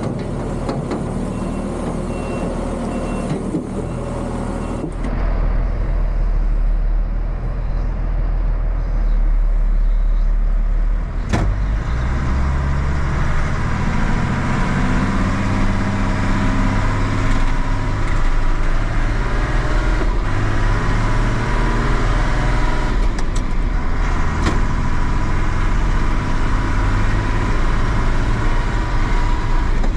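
John Deere tractor engine running steadily, heard from inside the cab as it drives along the road. The first few seconds hold a hissier engine sound from outside before the steady cab sound takes over, with a sharp click about eleven seconds in and a few light clicks later.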